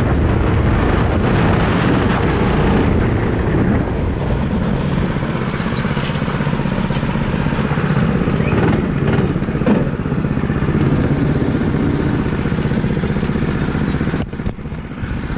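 Go-kart's small petrol engine running, easing off a few seconds in as the kart slows, with a brief drop in level near the end.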